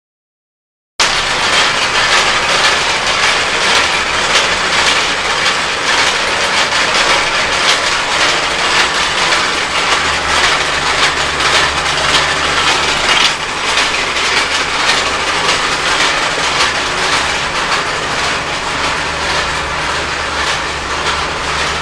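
Rotary sand dryer drum turning at 30 RPM: a loud, steady mechanical clatter with dense fine clicking. It starts after about a second of silence, and a low hum joins about ten seconds in.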